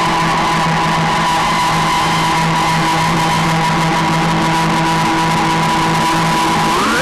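Experimental noise music for violin and electronics: a dense, loud wash of noise with several steady held drones beneath it. Near the end the held tones sweep sharply upward in pitch.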